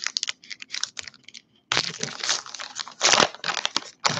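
Wrapper of a baseball card pack crinkling and tearing as it is ripped open and peeled off the cards, in irregular crackling bursts with a short pause about a second and a half in.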